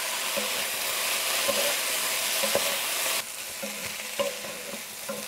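Vegetables sizzling as they stir-fry in a nonstick wok, turned with a wooden spatula that gives scattered light knocks and scrapes against the pan. The sizzle turns quieter about three seconds in.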